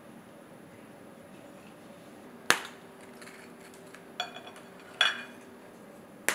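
Four sharp knocks and clinks of a ceramic bowl and snacks handled on a granite countertop. The first and loudest comes about two and a half seconds in and leaves a faint ringing tone for about three seconds.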